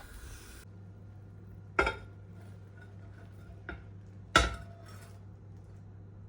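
Dishes and utensils being handled: three sharp clinks and knocks of crockery or cutlery set down, the third the loudest, with a brief ring after it.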